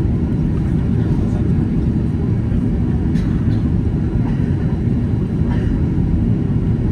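Cabin noise inside a Boeing 767-300ER airliner: a steady, loud, low rumble of the engines and airflow.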